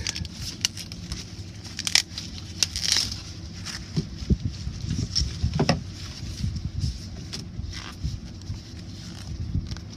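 Green corn leaves crackling, tearing and rustling as they are pulled back and unrolled from a corn plant's whorl by hand: a string of short, irregular crackles over a low steady rumble.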